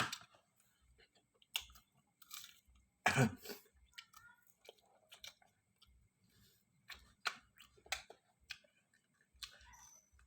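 A person chewing instant noodles close to the microphone: a scatter of short, faint mouth clicks, with one louder mouth noise about three seconds in.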